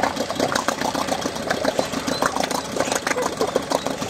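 Continuous rapid, irregular splashing and churning of water.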